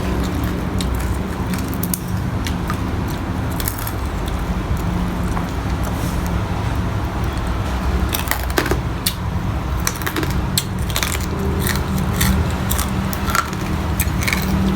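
Close-miked eating: chewing and biting with many irregular wet clicks and smacks over a steady low hum.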